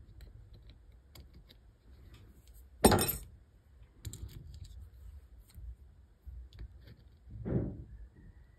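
Small clicks and taps of metal tweezers and fingers working on a phone circuit board, with a loud rattling clatter of clicks about three seconds in and a duller knock near the end.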